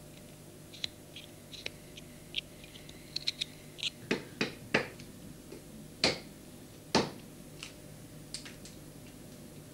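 Mallet striking a woodcarving chisel into a block of wood: light clicks and snaps of the blade cutting, then from about four seconds in a run of sharp knocks, five loud ones and two fainter.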